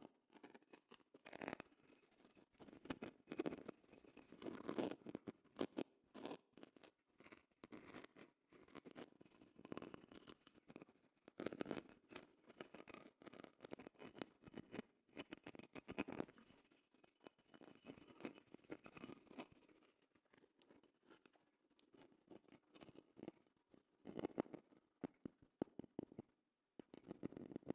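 Quiet, close-miked scratching and tapping on a shell: irregular crisp scrapes and small clicks in uneven clusters, with brief lulls between.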